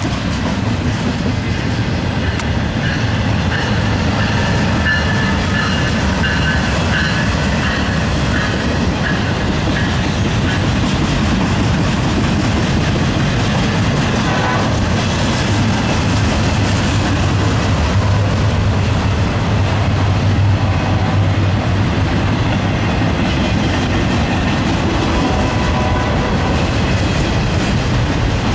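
Intermodal freight train rolling past, its flatcars carrying highway trailers and containers: a steady rumble and clatter of wheels over the rail. A thin high wheel squeal rises above it for several seconds in the first third.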